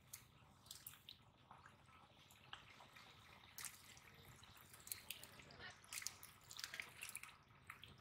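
Faint, scattered small splashes, drips and squelches of hands groping through shallow muddy water, coming more often in the second half.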